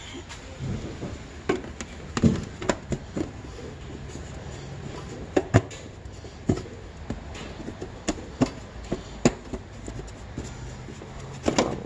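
Handling noise from a cut sheet being pushed and shifted into place against the underside of a pickup's front wheel well, with scattered sharp knocks and taps as it strikes the metal.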